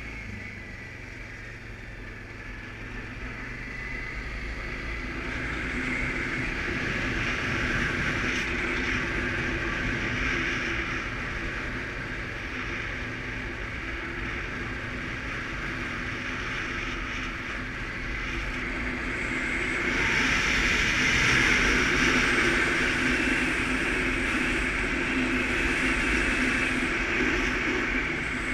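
Suzuki KingQuad ATV engine running while riding along, with wind and road noise. It grows louder about a fifth of the way in and again about two-thirds through, as if the throttle is opened.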